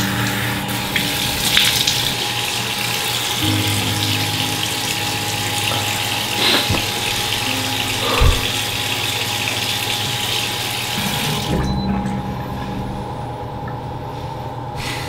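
Bathroom sink tap running as hands are washed under it. The water stops about three-quarters of the way through.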